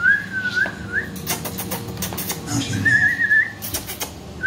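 A dog whining in two short, high, wavering whines, one at the start and one about three seconds in, with sharp clicks in between.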